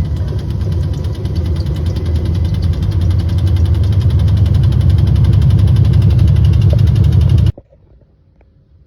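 A Samsung appliance running with a steady low hum and a fast, even crackle inside the machine that sounds like rain, the fault being shown. It grows a little louder partway through and stops abruptly near the end.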